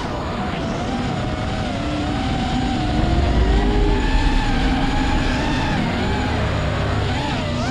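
Motor and propeller whine of a five-inch FPV racing quadcopter, its several pitches rising and falling together as the throttle changes. A low rumble swells about three seconds in.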